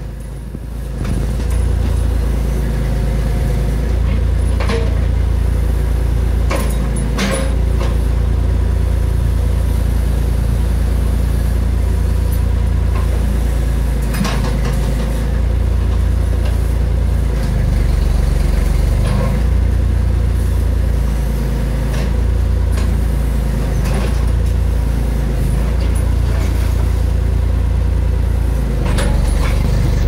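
Backhoe loader's engine running steadily under working load as the hydraulic arm digs out and shoves over a lemon tree. The engine's note shifts about halfway through, and occasional sharp knocks and cracks sound over it.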